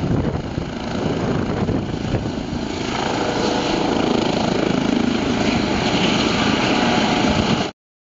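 Eurocopter EC135 twin-turbine helicopter hovering just above the ground close by, a steady rotor and turbine noise that grows louder about three seconds in. The sound cuts off abruptly near the end.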